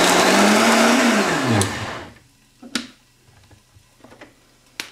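Harrexco high-speed countertop blender running at full speed, puréeing spinach, cashews and coconut milk into a smooth sauce. It is switched off about a second and a half in, and the motor winds down with a falling pitch. Two light knocks follow.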